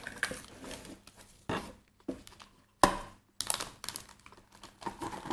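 A knife cutting through a baked mooncake in a thin plastic tray: irregular scraping and crinkling of the plastic, with one sharp click near the middle as the blade meets the tray.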